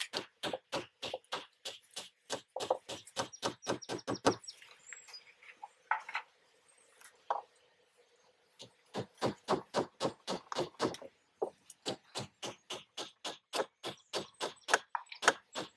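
Hammer tacker striking a wooden post cap over and over, driving staples into its sides, in quick runs of about four blows a second. The blows stop for a few seconds around the middle, with only a couple of single hits, then start again.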